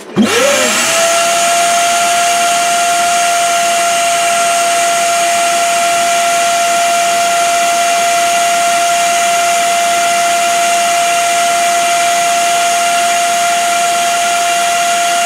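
Vacuum cleaner switched on, its motor spinning up in about half a second to a loud, steady high whine that holds level. It is drawing suction through a hose on a freshly poured aluminium investment-casting flask.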